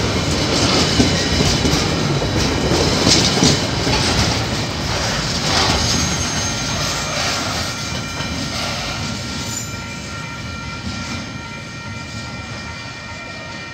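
KiwiRail freight train of container flat wagons rolling past close by, wheels clattering over the rail joints. The noise fades steadily over the second half as the last wagons go by and the train draws away.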